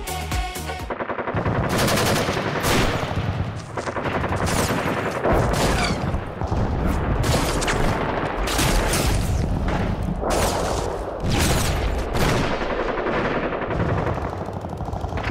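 Video game sound effects: rapid gunfire in dense volleys with heavy low booms, played as a game-audio sample. A pop music sample cuts off about a second in.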